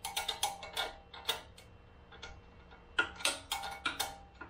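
Ratchet wrench clicking in two short runs of sharp metallic clicks, with a pause of about a second and a half between them.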